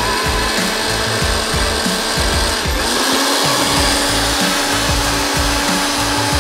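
Russell Hobbs jug blender running, its stainless steel four-tip blade mixing liquid crepe batter in the glass jug. The motor note drops in pitch about three seconds in.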